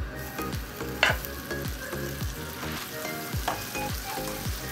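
Butter sizzling as it hits hot oil in a nonstick frying pan, with a sharp tap on the pan about a second in and another past the middle, over background music with a steady beat.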